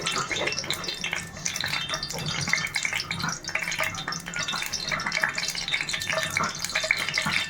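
Cooking oil heating in a hot pan, with a steady light crackle and sizzle of many small pops, over a low steady hum.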